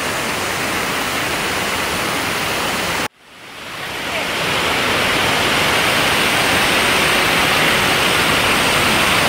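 Mountain river rapids rushing steadily over boulders. The sound cuts out abruptly about three seconds in, then fades back in over about a second, a little louder than before.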